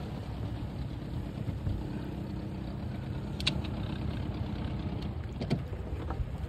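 Boat motor running steadily at low speed, a low even hum, with a few light knocks against the boat about halfway through and near the end.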